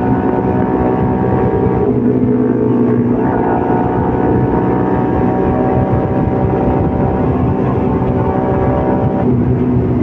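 CFMOTO Papio 125's single-cylinder four-stroke engine running while riding at fairly steady revs. The engine note dips and changes pitch briefly about two and three seconds in and again near the end.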